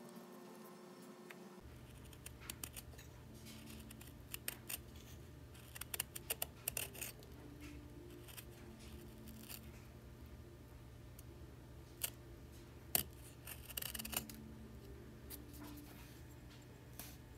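Short crisp cutting and scraping sounds from a utility-knife blade paring spalted wood on a carved crankbait body, coming in scattered clusters, over a low steady hum that begins about two seconds in.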